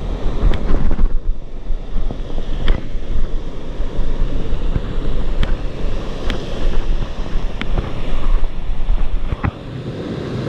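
Rushing water of a waterfall stream with wind buffeting the microphone, making a loud, steady rumbling roar, and a few sharp knocks scattered through it. The low rumble drops away about nine and a half seconds in.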